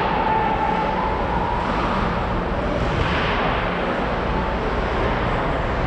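Steady background noise of an ice hockey arena during play: a continuous rumbling hum with no distinct impacts.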